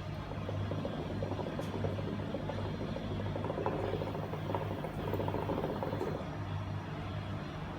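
Hookah water bubbling in a dense run of fine, rapid pulses as someone draws a long pull through the hose, stopping about six seconds in, over a steady low hum.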